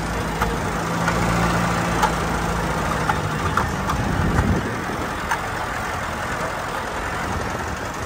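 Open 4x4 vehicle driving over sand dunes: the engine runs with a steady low tone that fades about three and a half seconds in, over a continuous rushing noise.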